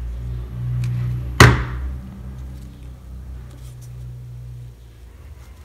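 A hot glue gun set down on the tabletop with one sharp knock about a second and a half in, over a low steady hum that stops near the end.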